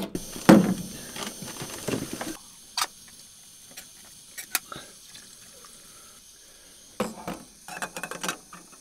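Cooking on a small gas camp stove: clatter of a metal pot and utensils being handled, with a knock about half a second in. In the middle, a steady faint hiss with a few light clicks, then more pot handling near the end.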